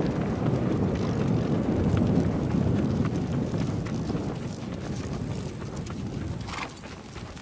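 Hoofbeats of several horses walking and trotting over grass and a dirt track, under a low rumbling noise that drops off about six and a half seconds in.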